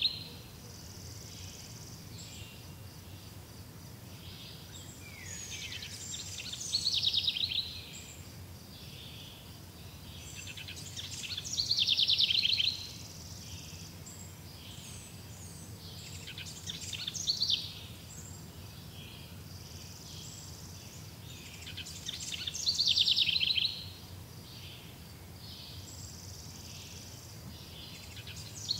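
High-pitched rapid pulsing calls from a small wild creature, each swelling for one to two seconds and then cutting off, repeating about every five seconds over a steady low background hum.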